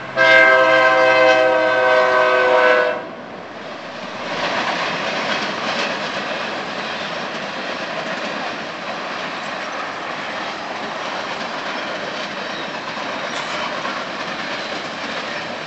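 Locomotive horn sounding one loud blast of about three seconds that cuts off suddenly. It is followed by the steady wheel-on-rail noise of a freight train of empty well cars rolling past.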